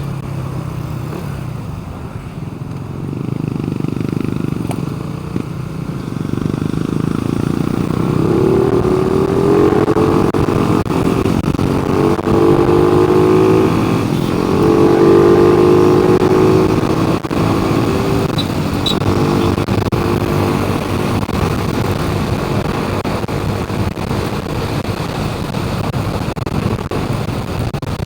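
A motor vehicle's engine running, rising in pitch and loudness about a third of the way in and easing back to a steady run in the last third.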